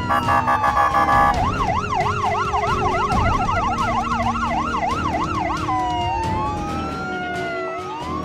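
Ambulance siren: a rapidly pulsing horn-like tone for about a second, then a fast yelp sweeping up and down about four times a second, changing near six seconds in to a slow wail.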